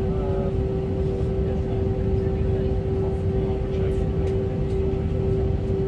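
Airbus A320-232's IAE V2500 turbofan engines running at low taxi power, heard inside the cabin: a steady rumble with a constant hum.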